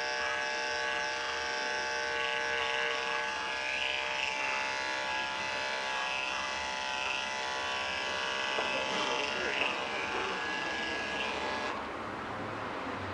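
Andis 5-speed corded clipper with an Oster attachment comb running steadily, its motor buzzing while it is drawn through a dog's coat. About twelve seconds in, the higher part of the buzz drops away.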